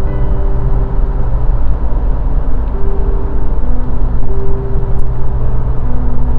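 Car driving at highway speed: steady road and engine noise with a deep rumble.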